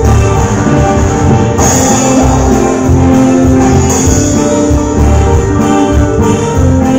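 Live tropical dance band playing loud amplified music with a steady beat: electric guitar, keyboard, drum kit and congas.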